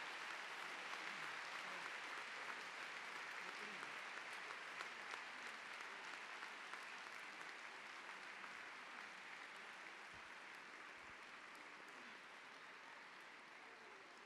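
Large indoor audience applauding, a steady even clapping that slowly dies down.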